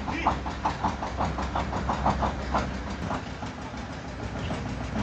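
Farm truck engine idling: a steady low hum with an even chugging knock, about five or six beats a second, stronger in the first half.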